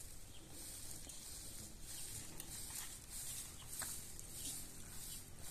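Faint clucking of chickens over a steady outdoor background hiss, with a few light clicks.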